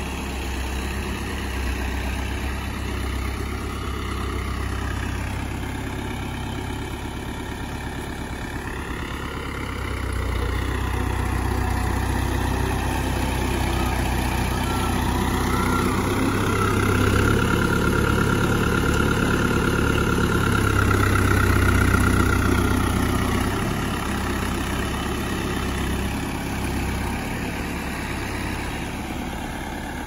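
Farm tractor's diesel engine running as the tractor drives back and forth over a pile of chopped corn silage to pack it down. The engine note rises and falls repeatedly and is loudest through the middle of the stretch.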